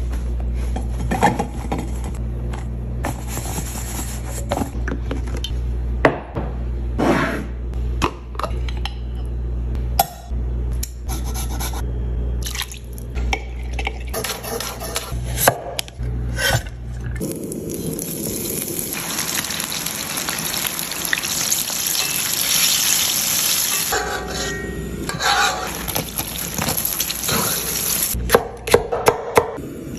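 Kitchen cooking sounds: utensils clicking and scraping against bowls and pans over a steady low hum. About halfway through comes roughly seven seconds of steady hiss, then more clinks near the end.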